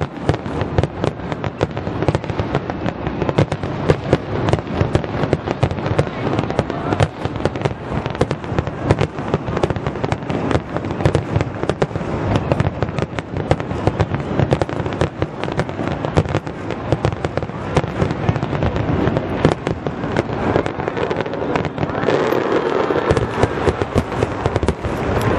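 Finale barrage of aerial fireworks shells at a large display: a dense, unbroken run of bursting bangs and crackle, many every second.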